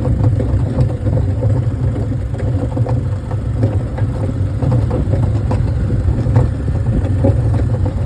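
A vehicle engine running steadily with a low rumble, with irregular small clicks and rattles scattered over it.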